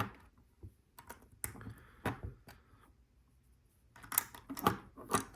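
Plastic LEGO pieces clicking and rattling as they are handled and pressed into place, a scatter of short clicks with a denser run near the end.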